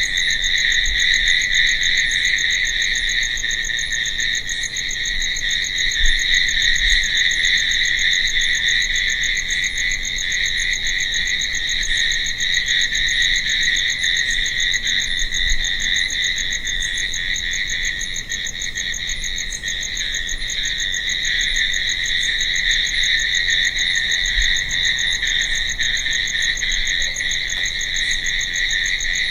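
A chorus of crickets chirping, an unbroken high trill.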